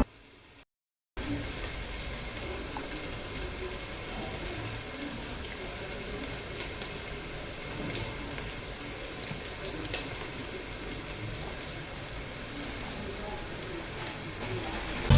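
Water running steadily from a kitchen tap, a continuous hiss that starts about a second in after a brief silence.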